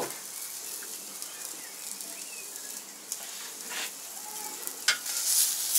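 Steak sizzling steadily on a hot gas grill's grate, with a few sharp pops. The sizzle grows louder near the end.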